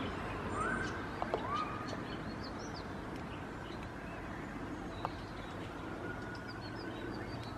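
Outdoor background noise with small birds calling: two short rising calls in the first two seconds, then a few faint high chirps. A few light clicks are also heard.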